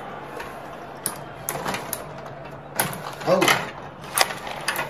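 Tabletop rod hockey game in play: irregular sharp plastic clacks and knocks from the rods being pushed and spun and the puck striking the players and boards. The loudest knocks come about three and four seconds in.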